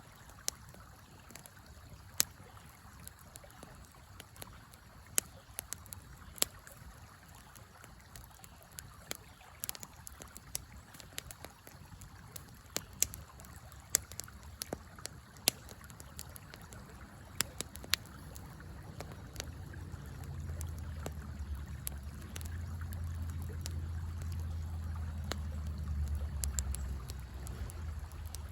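Wood fire crackling with scattered sharp pops over the steady rush of a river. A low rumble swells in during the last third and fades near the end.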